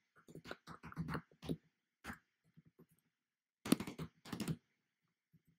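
Typing on a computer keyboard: irregular runs of key clicks, with a quick burst of keystrokes near the end.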